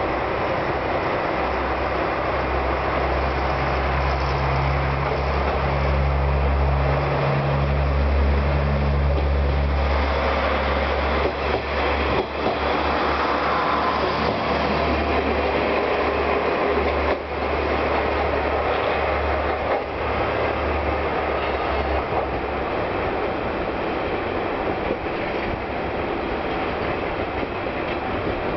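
Two-car KiHa 147 diesel railcar pulling out and passing close by. Its diesel engine drones low and steady, growing stronger about a quarter of the way in, and a few clacks of wheels over rail joints come as the cars pass. The engine drone fades after about three quarters, leaving the running noise of the wheels on the rails.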